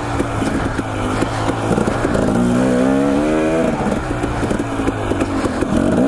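Dirt bike engine being ridden on a trail, its pitch rising and falling as the throttle is worked; the revs climb about two and a half seconds in, hold briefly, then drop back.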